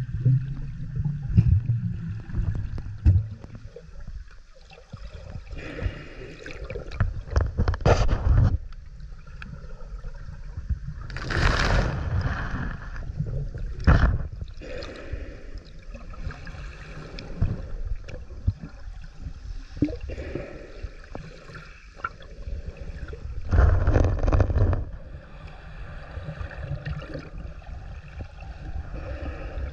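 Water sloshing and gurgling around an underwater camera as the swimmer moves, with an uneven low rumble, scattered knocks, and two louder rushing bursts, one near the middle and another about four-fifths through.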